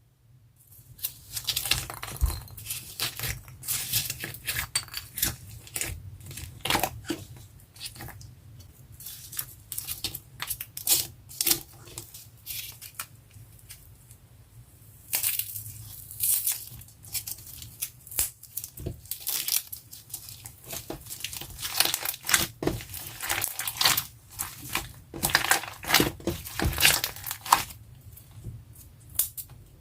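Thick slime mixed with foam beads being squeezed, pressed and stretched by hand, giving irregular bursts of crunchy crackling and sticky popping, with short quieter spells between handfuls.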